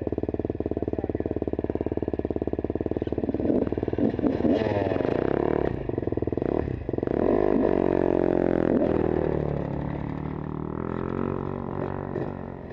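Dirt bike engines idling with a fast, even firing beat, blipped a few times; from about seven seconds in, one bike rides off, its engine note falling and fading over the next few seconds.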